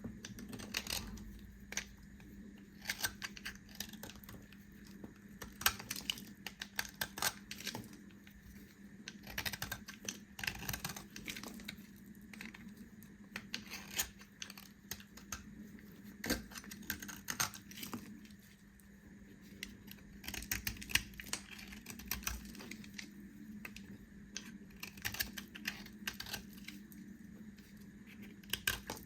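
Knife cutting through bars of soap, making crisp crackling clicks in short clusters every second or two as the blade bites and pieces break off.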